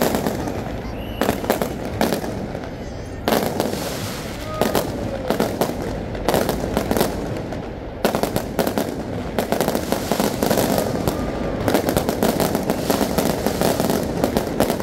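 Aerial fireworks bursting overhead: a run of sharp bangs and crackles, coming thicker and faster through the second half.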